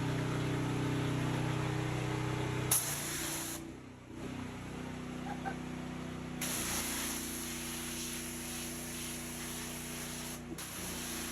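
Simpson gas pressure washer running, its engine humming steadily under the hiss of the wand's water jet blasting concrete. The spray stops for about three seconds partway through and again briefly near the end, and the engine note shifts each time the trigger is released and squeezed again.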